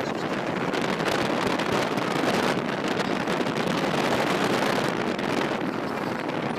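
Steady rushing noise from inside a moving vehicle, road and wind noise together, with wind buffeting the microphone.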